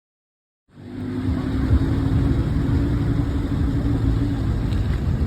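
Car engine running steadily with a low rumble, starting abruptly out of silence under a second in.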